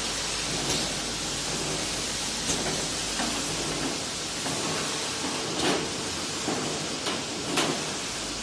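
Steady hiss of a running can-filling line, with a few sharp metallic clinks as square tin cans knock together on the conveyor.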